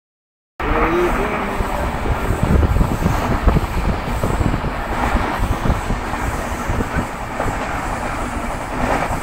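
Steady rumble and wind noise of a moving vehicle travelling at speed, heard from on board, with uneven low knocks from the running gear. It starts abruptly about half a second in.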